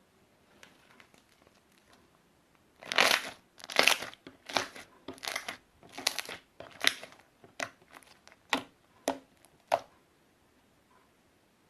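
Slime being squeezed and pressed by hand: a run of about a dozen noisy, crackly squeezes, the first ones longer and the later ones short and sharp.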